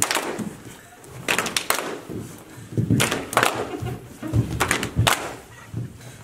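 A group of people clapping their hands in irregular, sharp claps, with a couple of low thuds on the floor about two-thirds of the way through.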